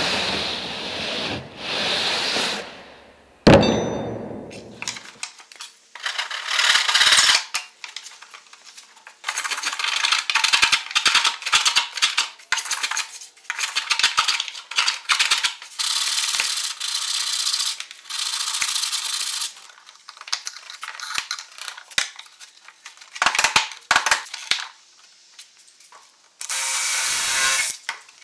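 Hand tools shaving and scraping the cedar strips of a canoe hull: scraping strokes in runs of one to a few seconds, with a sharp knock about three and a half seconds in. Near the end a cordless drill runs for about a second and a half.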